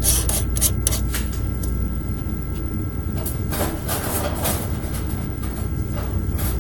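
Handling noises as a zirconia disc is secured in the Roland DWX-50 dental mill's puck holder: scattered light clicks and taps, with a longer scraping rub about halfway through and another near the end, over a steady low hum.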